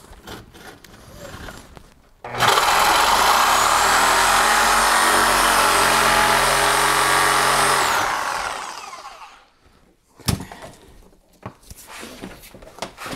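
Reciprocating saw (Sawzall) cutting metal on the golf cart's rusted battery-tray frame: the motor starts suddenly about two seconds in and runs steadily for about six seconds, then winds down with a falling whine once the trigger is let go. A few light metallic clicks follow.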